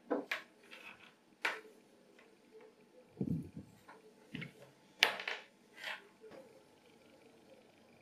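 Handling noises of hands working a cable with a tissue and lemon: scattered light rustles and sharp clicks, a soft thump about three seconds in and a louder click about five seconds in.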